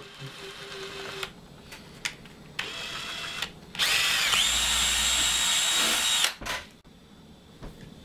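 Cordless drill drilling through the plastic back of a TV remote: a short whine of the motor, then a longer, louder run at speed that stops suddenly.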